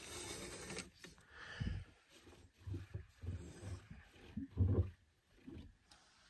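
A bare hand wiping the frosted, wet inside of a van's rear window, rubbing and squeaking on the glass in several short strokes, the loudest about two-thirds of the way through.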